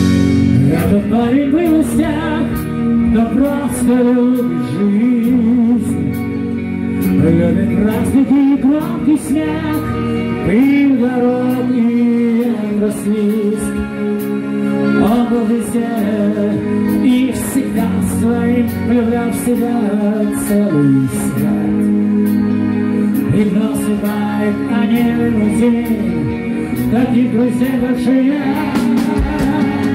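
Rock band playing a ballad live: a male lead vocal sung over electric guitar, bass guitar and drums.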